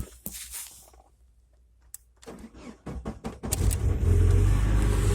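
UAZ Patriot's ZMZ-409 petrol engine cranked by the starter and catching about three and a half seconds in. It flares up loudly on starting and runs smoothly with no knock yet. A few light clicks come before the cranking.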